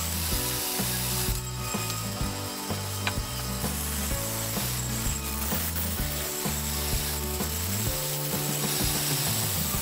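Bandsaw running, its blade cutting steadily through a thick block of hardwood along a curved line.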